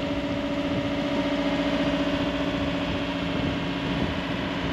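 A sailboat's engine running steadily while motoring, a constant hum with no change in speed.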